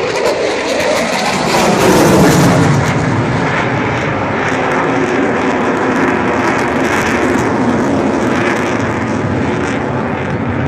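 Jet noise from a Eurofighter Typhoon's twin EJ200 turbofans as it passes overhead. The rumble's pitch falls over the first few seconds, loudest about two seconds in, then a steady, receding rumble.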